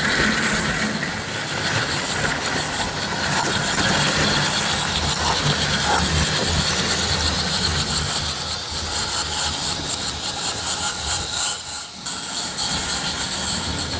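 Roundhouse live steam model locomotive running on tinplate O gauge track: a steady steam hiss with a fast patter of exhaust beats and the rattle of its wheels and tinplate coaches over the rails, dipping briefly near the end.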